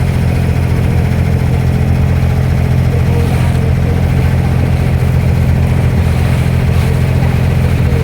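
An abra's diesel engine running steadily under way, with a low, even drone.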